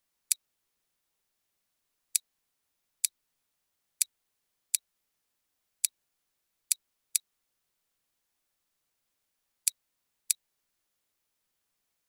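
Computer mouse button clicked about ten times, single sharp clicks at uneven intervals, the last pair a little after ten seconds in.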